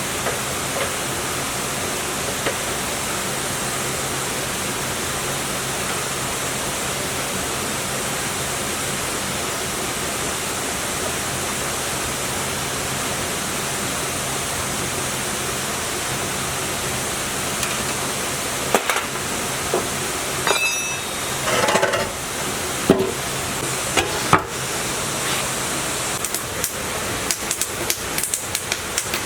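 A steady hiss with a faint low hum. From about two-thirds of the way through, a scattered run of sharp knocks and clicks comes in over it.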